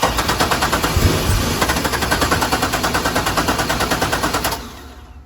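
2004 Corvette C5's LS1 V8 being cranked by its starter, a fast, even chatter that does not catch and stops about four and a half seconds in. It cranks without firing because no fuel reaches the engine: the fuel pump's fuse blows each time the key is turned, a short circuit traced to the fuel pump.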